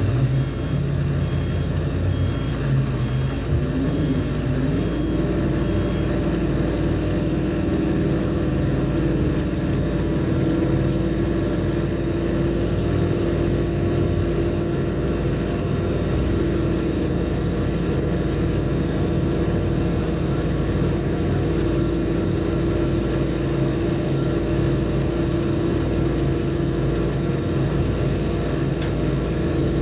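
Steady drone of a heavy machinery engine. Its hum rises in pitch about four seconds in and then holds steady. Faint, evenly repeated high beeps sound during the first several seconds.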